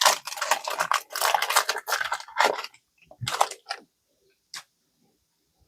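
Pokémon trading-card booster pack and cards being handled: dense crinkling and rustling for almost three seconds, then a few short rustles and a single click.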